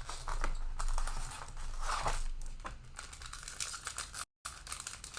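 Plastic trading-card pack wrapper being torn open and crinkled by hand, an irregular run of crackling and rustling. The audio cuts out for a moment about four seconds in.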